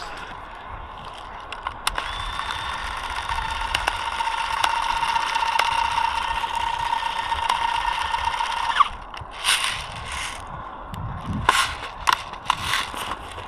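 Airsoft electric gun's gearbox whining steadily through a long burst of several seconds, which cuts off suddenly, followed by a string of short bursts.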